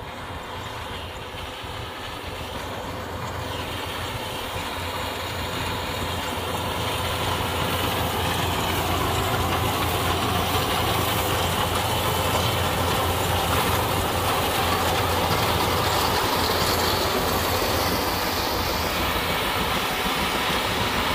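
Rice combine harvester's diesel engine running with a steady low hum, growing louder over the first several seconds as the machine comes closer, then holding steady.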